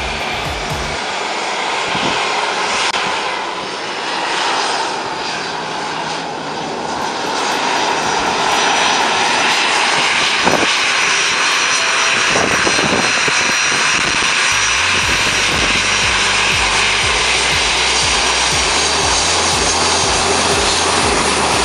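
Boeing 737's turbofan jet engines running at taxi power: a steady whine over a rushing roar, growing louder about eight seconds in as the aircraft comes close.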